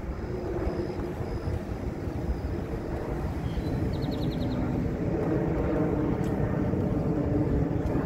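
Steady low rumble of distant traffic, growing a little louder in the second half.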